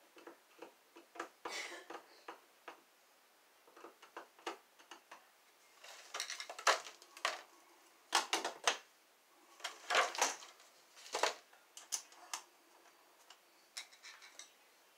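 Screwdriver and hands working a three-prong wall outlet: an irregular string of clicks, knocks and short scrapes of metal and plastic as the receptacle is screwed down, pushed into its electrical box and the cover plate fitted, loudest in the middle stretch.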